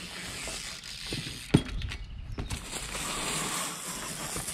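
Bicycle rolling over dry leaves and dirt, its freewheel ticking, with one sharp knock about one and a half seconds in.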